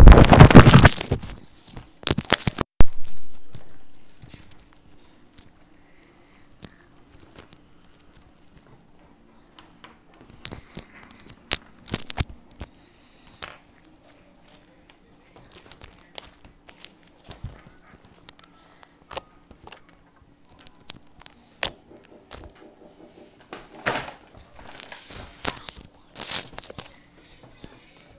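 White slime squeezed, stretched and pulled apart by hand, giving scattered small crackles, pops and sticky tearing sounds. It opens with a loud rustling noise that dies away within the first few seconds.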